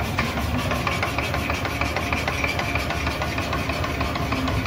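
Lexus RX350 KYB front air strut cycled on a shock dynamometer bench, knocking repeatedly as it strokes, over the bench's steady running hum. The knock comes from the damper having lost oil past its oil seal, so the piston works on air instead of oil at part of its stroke.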